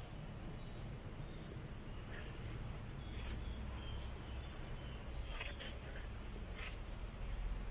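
Garden ambience: a steady high insect trill, with short bird chirps a few times over it.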